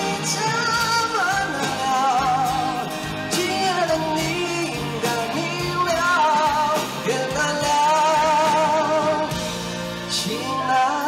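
Live band playing a slow rock ballad, with male vocals holding notes with vibrato over acoustic and electric guitar.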